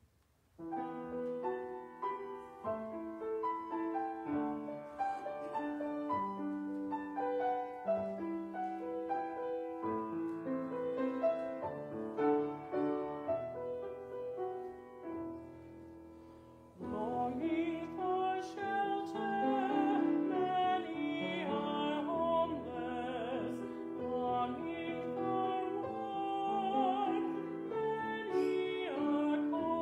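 Piano playing an introduction, then just over halfway through a man's solo singing voice comes in with vibrato over the piano accompaniment.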